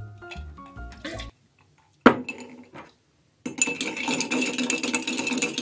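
A metal bar spoon stirring ice cubes in a glass mason jar: continuous clinking from about three and a half seconds in. Before it, background music runs for about a second, and a single sharp knock comes about two seconds in.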